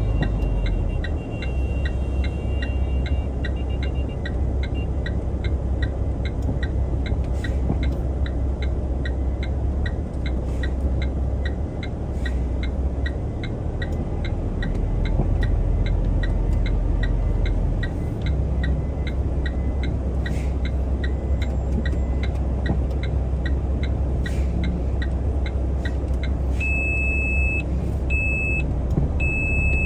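Truck engine running steadily, heard from the cab, with a faint regular ticking about twice a second. Near the end, short high electronic beeps repeat several times.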